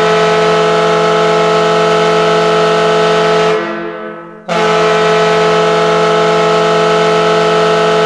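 Brampton Beast's arena goal horn, a loud air horn sounding for a scored goal, in two long steady blasts. The first cuts off about three and a half seconds in and fades away. The second starts about a second later and holds. The recording is dry, without added reverb.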